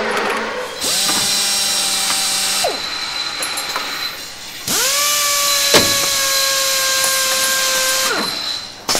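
A power tool run twice: its motor spins up, holds a steady whine with a hiss over it, and winds down, first briefly and then for about three and a half seconds.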